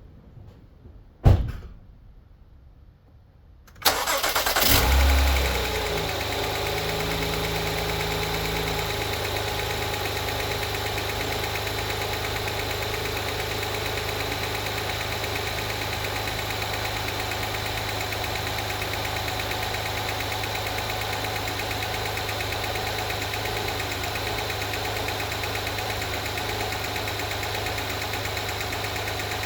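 A loud clunk about a second in, then a 2016 Acura RDX's 3.5-litre V6 starts just under four seconds in, revs briefly and settles to a steady idle. A fast ticking that keeps pace with engine speed runs through the idle; it appeared after a spark plug change and timing belt job.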